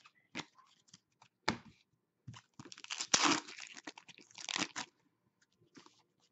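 A foil-wrapped hockey card pack being torn open: a long crinkling rip from a little before three seconds in to nearly five seconds in. Before it come a few light taps and flicks of the cards being handled.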